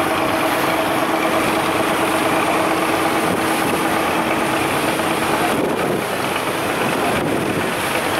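Boat engines running steadily under a constant rushing noise; a steady engine hum in it stops about five and a half seconds in.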